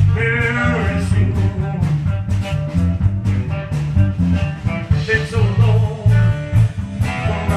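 Music with a singing voice, guitar, a stepping bass line and a steady drumbeat.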